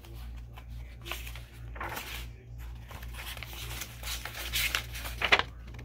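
Paper pages of a picture book being turned and pressed flat by hand: rustling in two stretches, the second longer and ending in a sharp swish about five seconds in.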